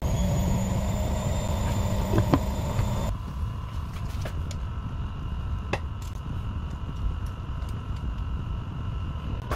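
Steady low rumble of a pot of water boiling on a stove burner, with a faint hum underneath. The sound changes about three seconds in, and a few sharp clicks cut through it.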